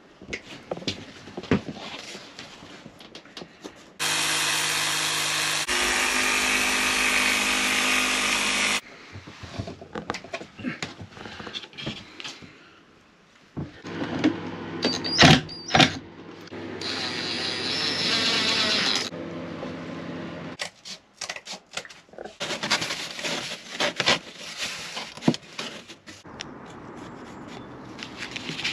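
Woodworking power tools in several separate bursts: a steady run of about five seconds starting some four seconds in, then a Makita cordless impact driver driving screws with sharp knocks and a whine. Knocking and rubbing of wood between the runs.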